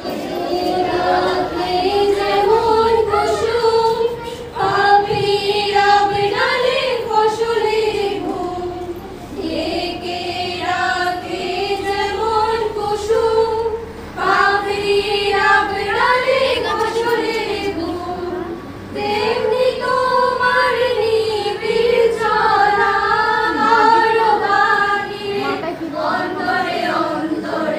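A group of women singing a Bengali song together in unison, in long phrases with short breaks between them.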